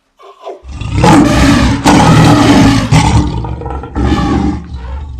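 A lion roaring, a sound-effect track: after a brief silence, loud roars come in several pulses for about two and a half seconds, then a shorter roar near the end.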